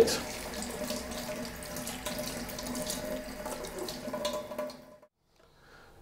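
Cold water running from a kitchen mixer tap into a stainless steel sink, splashing over a hand and a plastic mouthguard held in the stream to cool the freshly moulded guard back to normal temperature. The water sound stops suddenly about five seconds in.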